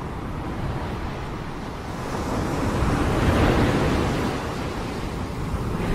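Ocean surf: a rushing wash of waves that swells to a peak about halfway through and then eases off.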